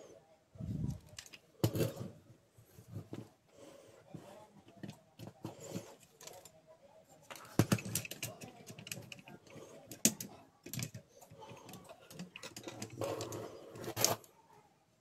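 Irregular clicks and light knocks of a laser-printer fuser unit's plastic gears and metal frame being handled and worked on by hand, with a few sharper clicks and some scraping between them.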